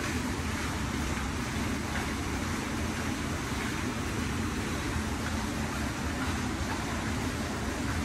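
Steady urban background noise: a continuous even rush with a faint low hum under it and no distinct events.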